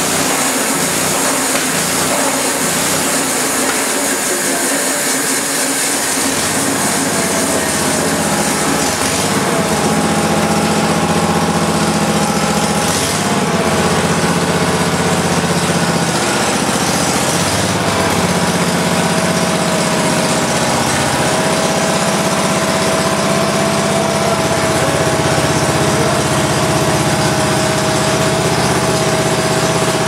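The gas engine of a homemade band sawmill running steadily while its bandsaw blade cuts along a timber, with a steady high whine over the engine's hum.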